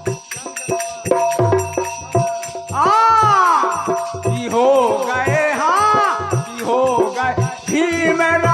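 Folk devotional music: a voice sings long rising-and-falling notes over a steady drone, with jingling rattle percussion keeping a quick regular beat.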